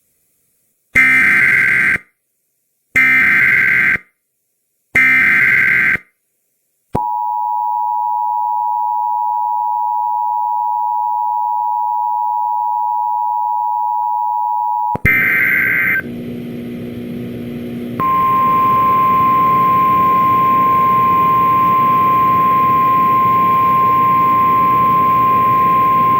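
Emergency Alert System header: three one-second SAME data bursts, a shrill warbling screech, then the two-tone attention signal held steady for about eight seconds. After another short data burst comes hissy NOAA Weather Radio audio. From about 18 seconds in, the steady 1050 Hz weather radio alert tone sounds over the hiss: the weather radio's own alert passed through the cable relay, making the message too long.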